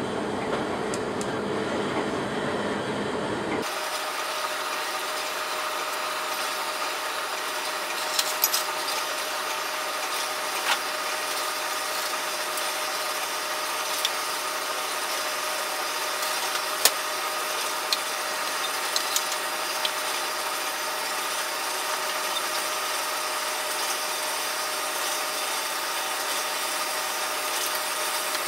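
Gas burner of a metal-melting furnace blowing steadily, with a few sharp metallic clinks from the middle onwards as tongs handle the crucible and molds.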